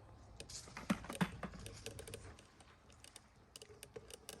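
Irregular dry clicks and crackles, like harvested corn cobs and husks being handled, with two louder knocks about a second in.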